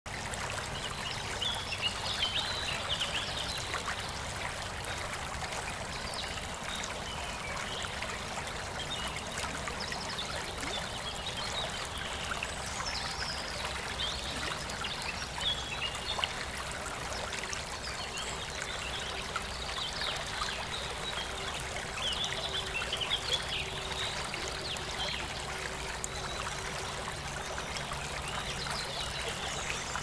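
Shallow rocky forest stream babbling and trickling steadily over stones and small cascades, with small birds chirping now and then.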